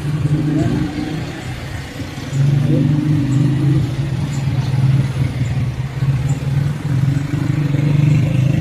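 Motor vehicle engine running with a steady low hum, amid street traffic.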